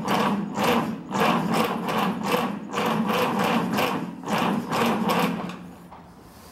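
A grey Ferguson TEF 20's four-cylinder diesel engine being cranked by its starter motor, turning over in an even rhythm of about two or three pulses a second without catching, and stopping about five and a half seconds in. The owner puts the failure to start down to a loose starter-motor terminal and a faulty earth.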